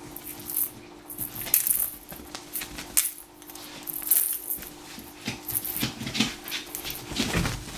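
Kittens playing with a feather wand toy on a bed: a scatter of quick clicks, scratches and rustles from paws, claws and the toy, with a heavier thump near the end.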